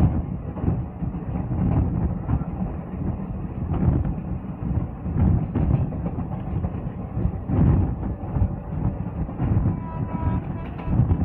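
Passenger coach running at speed, heard from its open door: a steady rumble of wheels on rail with irregular clatter and thumps over the track. A few steady high tones come in near the end.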